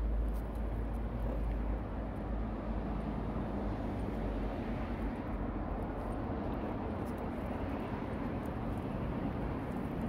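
Meerkat digging with its forepaws in loose sandy soil: a steady scratching rustle of dirt, over a low rumble that eases about two seconds in.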